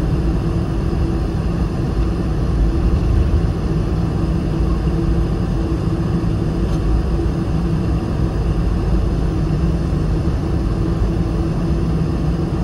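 Boeing 747-400 taxiing, heard from inside the cabin over the wing: a steady low engine hum and rumble at taxi power, with no change in level.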